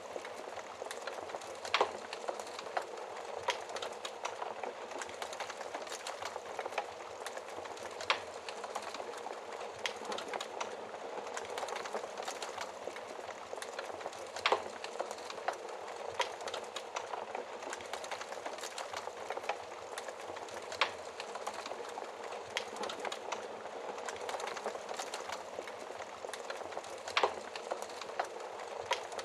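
Wood fire burning: a steady hiss with constant small crackles and a few sharp, louder pops every several seconds.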